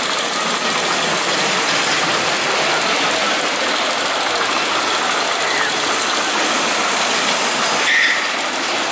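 Compact portable steel coaster car rolling along its track through the helixes, a steady rumbling rattle of wheels on steel rails. A short high-pitched sound comes about eight seconds in.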